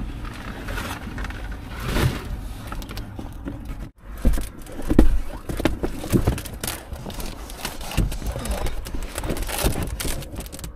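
Stiff reflective WeatherTech window shades rustling and scraping as they are handled and pushed into place against the car's windshield and window frames, with irregular knocks and bumps.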